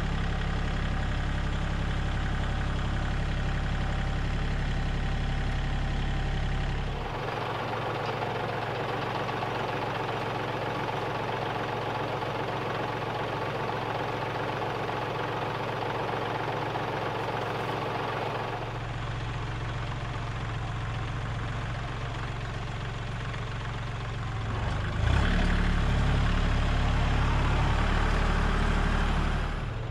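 Kubota compact tractor's diesel engine running steadily at idle, growing louder near the end.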